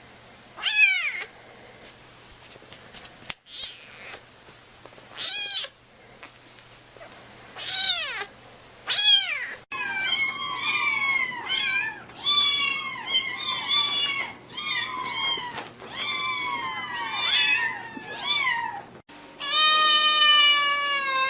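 Kittens meowing: a few separate high meows spaced a few seconds apart, then from about halfway a quick run of many meows one after another, ending in one long drawn-out meow.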